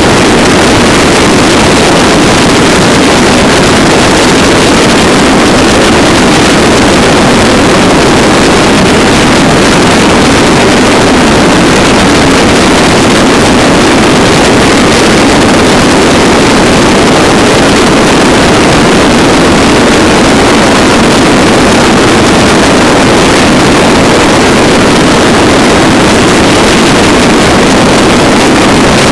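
Motorcycle cruising at steady highway speed: a constant loud rush of wind on the microphone over the engine's drone, with no change in pace.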